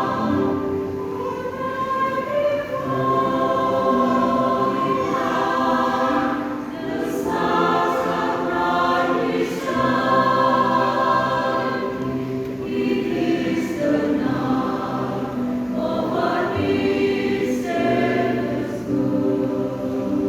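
Church choir singing a hymn in phrases of held notes.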